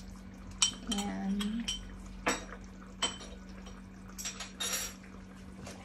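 About half a dozen light clinks and knocks of kitchen utensils against a glass jar and cookware while a sauce is being salted, over a steady low hum.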